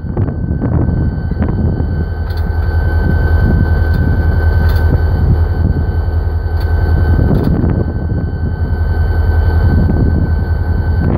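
Diesel locomotive engine running close by: a steady low drone with a steady high whine above it and a few light metallic clicks.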